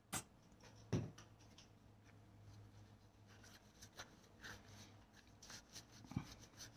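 Faint rubbing and light scuffing of a cloth pad working mineral oil into a dry leather knife sheath, with a few soft knocks, the loudest about a second in.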